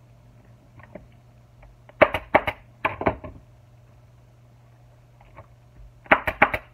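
Leather cover being pulled and folded over a hard plastic motorcycle seat pan, crackling and knocking in three short bursts of quick sharp clicks, two about two seconds in and one near the end.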